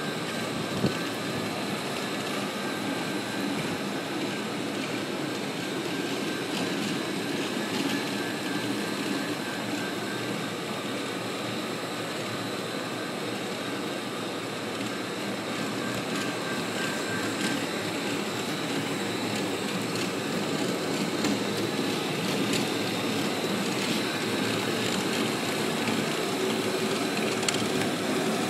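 HTC 950 RX concrete floor grinder running steadily, its grinding head working across a concrete slab to polish it. A continuous machine noise with a faint steady whine over it, growing slightly louder in the second half.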